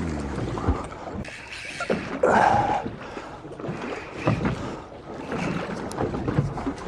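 Sea slapping and washing against a small fishing boat's hull, with wind on the microphone and a louder burst a little over two seconds in.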